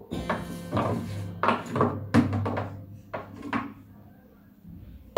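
Irregular knocks and clatters of objects being handled, with a small acoustic guitar's low strings ringing underneath. The knocking thins out about three seconds in and is faint for the rest.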